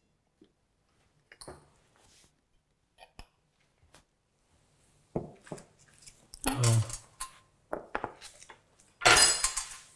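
Light kitchen handling sounds: a few sharp clicks and knocks of utensils and a baking tray, then busier rustling and knocking with a little low voice, and a brief loud hissing rush near the end.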